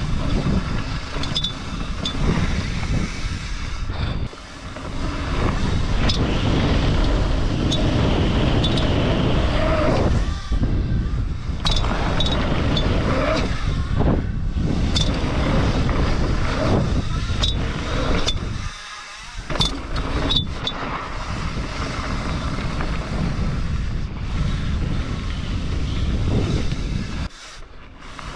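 Mountain bike being ridden fast over loose desert dirt: tyre noise and wind on the microphone, with sharp ticks of the chain slapping the bare chainstay, which has no chain protector fitted. The noise drops off briefly a few times.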